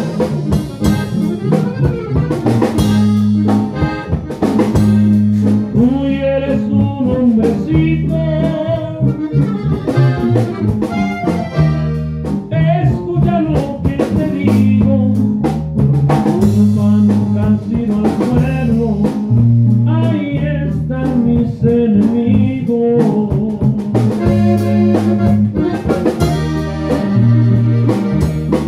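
Live norteño-style band playing: button accordion carrying the melody over guitar, electric bass and a drum kit keeping a steady beat, with a man singing into the microphone.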